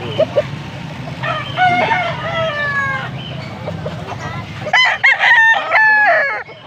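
Gamecocks crowing: a fainter crow starting about a second in, then a loud, close crow near five seconds in whose last note is held for about a second.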